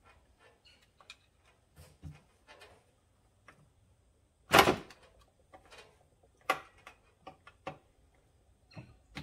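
Scattered clicks and knocks of hand tools and metal parts being worked during engine disassembly, with one loud sharp knock about four and a half seconds in and a few smaller ones after it.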